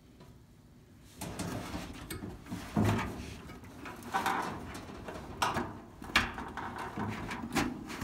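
Irregular knocks, clunks and scraping of parts being handled inside an opened dryer cabinet, starting about a second in, as the drum's drive belt is worked loose.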